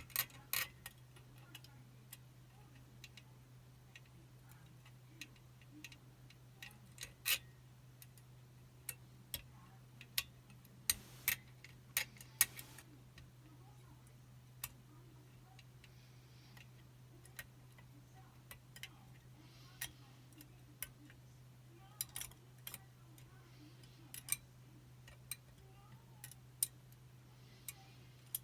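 Faint, irregular small metallic clicks and ticks of a picking wire and tensioner working the levers inside a Chubb Detector five-lever lock, with a brief run of clicks about eleven seconds in. A faint steady low hum runs underneath.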